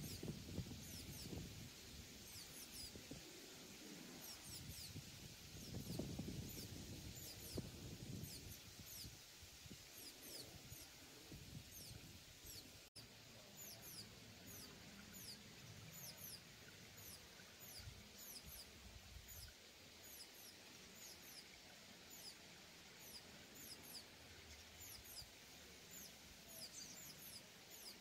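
Faint, very high, thin songbird chirps, short falling notes repeated many times. Under them runs a low rumble that fades after the first several seconds.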